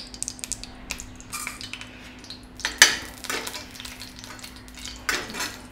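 Steel spoon and metal spatula scraping and clinking against a frying pan as cooking oil is spooned in and spread, with a sharp clink about three seconds in and another near the end.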